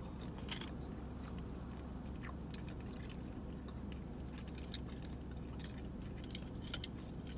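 Close-up chewing and mouth sounds of someone eating steamed mussels, with scattered small clicks as the mussel shells are handled, over a steady low hum.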